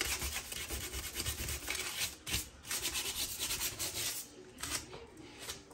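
150-grit sandpaper rubbed by hand in quick back-and-forth strokes over a painted MDF cabinet door, lightly scuffing off peeling paint. The strokes stop about four seconds in, leaving a few faint scrapes.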